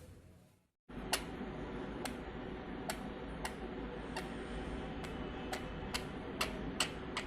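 A series of sharp, irregularly spaced clicks, about one to two a second and coming faster near the end, over a steady low background hum. The sound drops out completely for a moment just before the first second.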